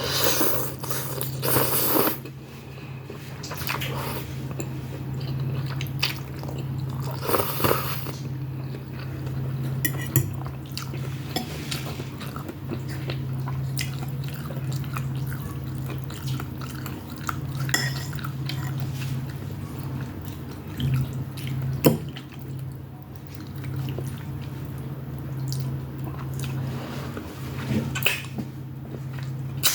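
Eating sounds from a bowl of beef Shanghai noodles: utensils clicking against a dish now and then, with chewing between, over a steady low hum.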